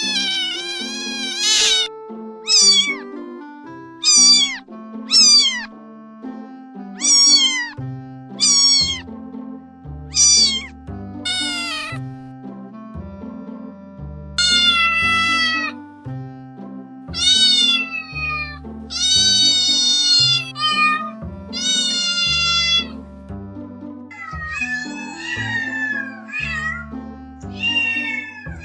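Domestic cat meowing again and again, about twenty short high meows that fall in pitch, the later ones drawn out a little longer, over background music with a steady bass line that comes in about eight seconds in.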